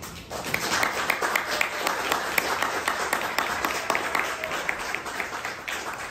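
Audience applause: many hands clapping together, starting about a third of a second in.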